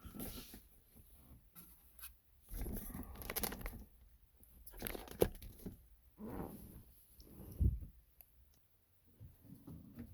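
Plastic overhead console being handled and lifted toward the truck's ceiling: rustling and scraping in several short bouts, with a few sharp clicks and knocks.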